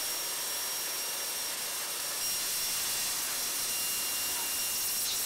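Wire EDM machine cutting an aluminium extrusion: a steady hissing crackle from the spark discharge at the cut, with faint high steady whines.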